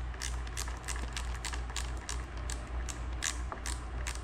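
Socket ratchet clicking in short strokes, about three clicks a second, as a nut is run back onto its bolt, over a steady low hum.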